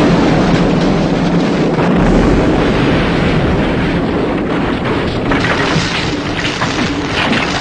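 Mine cave-in: a heavy, continuous rumbling roar of rock and timber collapsing, easing a little near the end with scattered clattering of falling debris.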